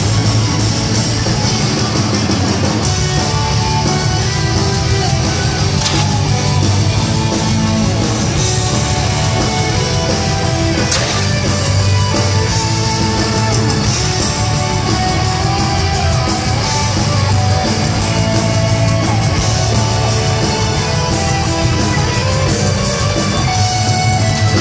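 Heavy metal band playing live, an instrumental passage: distorted electric guitars over bass and drums, with steady rapid cymbal and drum hits.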